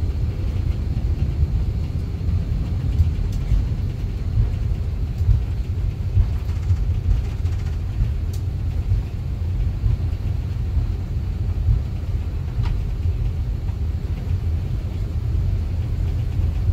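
Airbus A330-200 cabin noise while taxiing in after landing: a steady low rumble from the idling engines and cabin air, with a few faint clicks.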